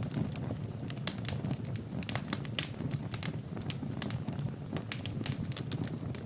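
Wood fire burning in a fireplace, crackling and popping irregularly, several snaps a second, over a low steady rumble.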